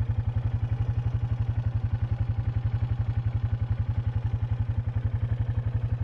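Quad (ATV) engine running steadily, heard from the seat, with a fast, even pulsing beat that holds at the same pace throughout.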